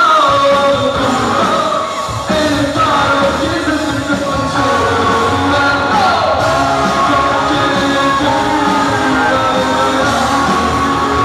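Live rock band playing loudly: a male lead singer singing over acoustic guitar, electric guitar and a drum kit.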